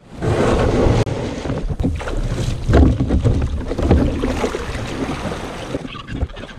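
Wind buffeting the microphone over water sloshing and splashing around a kayak being paddled through choppy water. The noise eases off near the end.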